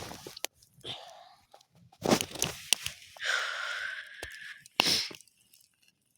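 Irregular crunching and rustling handling noises with a few sharp clicks and snaps, the longest rustle lasting about a second and a half in the middle.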